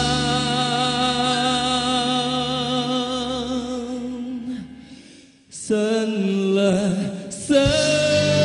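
A male singer holds the closing note of a Thai worship song with vibrato over the backing, fading out about five seconds in. After a brief gap a different piece of music begins, stepping up in level near the end.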